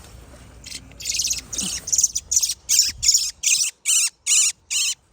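A bird calling a quick series of about eleven short, shrill notes, roughly three a second, starting about a second in.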